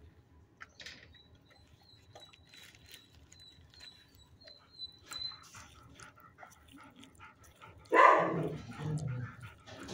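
A dog gives one loud bark about eight seconds in, the sound drawing out for about a second; before it there are only faint taps.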